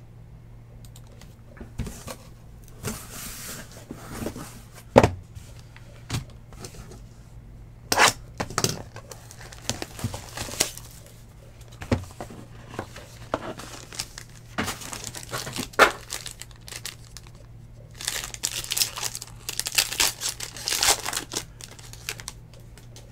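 Hands opening a 2019 Topps Tier One baseball card box and its wrapping: crinkling and tearing of wrap and cardboard, with scattered sharp taps and clicks as cards are handled, and a denser run of crinkling near the end.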